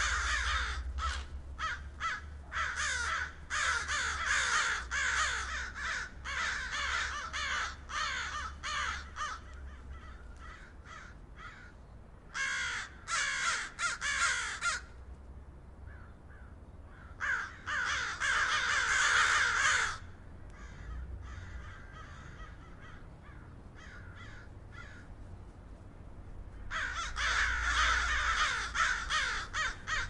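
Crows cawing in dense, overlapping runs of harsh calls. The calls come in bursts with thinner stretches around the middle, then crowd in again near the end.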